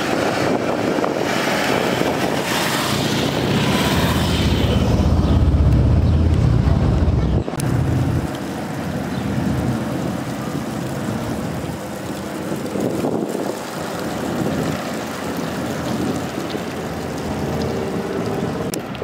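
Engines of several police touring motorcycles running as the group rides by close, with a deep engine drone that builds to its loudest about six seconds in, then drops off suddenly at about seven and a half seconds to a quieter, more distant engine sound with street noise.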